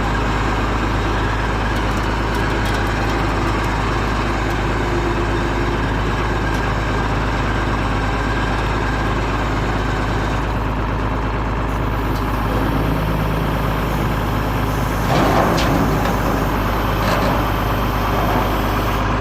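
A heavy diesel engine running steadily, with a louder stretch of noise about fifteen seconds in.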